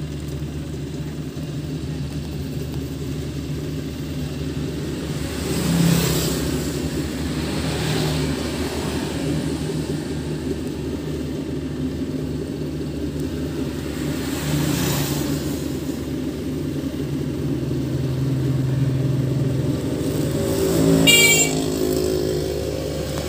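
Engine of a rice harvesting machine running steadily, with a low drone that swells louder a few times and a brief louder, higher-pitched burst near the end.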